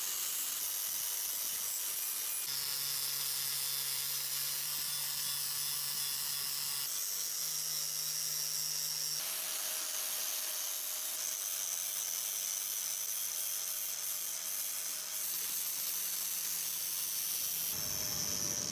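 An angle grinder's spinning abrasive disc grinds the steel of a hatchet head to take out rust pitting marks. The grinding noise is loud and steady, and its tone shifts abruptly a few times.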